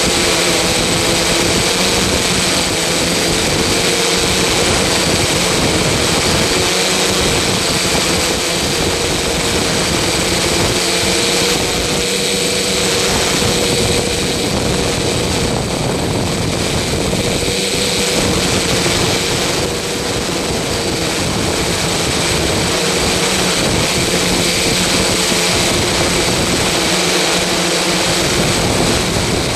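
Steady, loud mechanical drone with several held hum tones over a wide noise, unchanging throughout.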